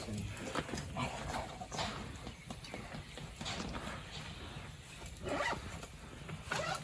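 A pet dog making a few brief whines among light tapping and scuffling sounds.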